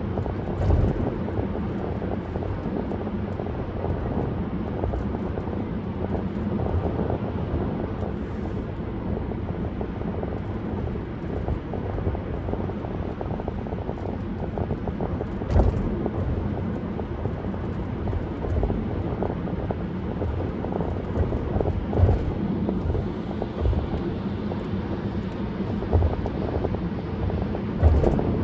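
Steady road, tyre and wind noise from a car driving along a parkway, with a low engine hum. A few brief thumps stand out, about a second in, midway, and near the end.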